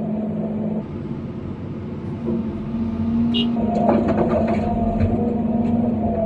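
John Deere 350D excavator's diesel engine and hydraulics running under load, heard inside the cab. From about three and a half seconds in comes a clatter of rocks and dirt as the bucket dumps pit run into a dump truck's box.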